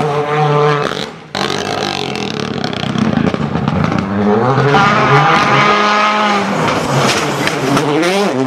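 Rally cars at full throttle, engine pitch rising and falling with gear changes. The sound cuts out sharply for a moment just over a second in, then comes back.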